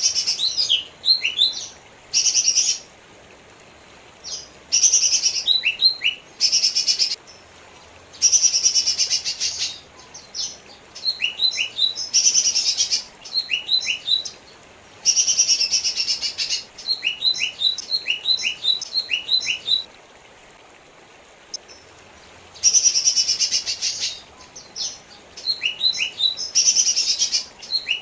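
Lesser green leafbird (cucak ijo mini) singing repeated high phrases. Each phrase mixes a dense rattling chatter with quick falling whistles, with short pauses between phrases.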